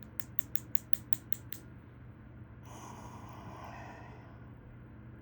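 A quick run of small sharp clicks, about five a second for a second and a half, as a tool works at the stuck springs in a gutted Goal D9 lock, followed by a long breath out through the nose.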